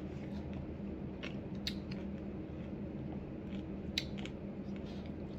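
A galah eating bacon and egg from a plate: scattered sharp little clicks and crunches of its beak pecking the food and the plate, a couple of them close together near the end, over a steady low hum.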